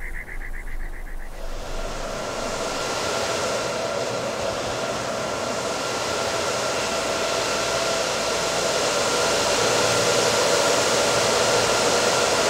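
Steady rushing air noise from rows of cryptocurrency-mining machines' cooling fans and large exhaust fans, with a faint hum at two pitches. It comes in about a second in and grows gradually louder.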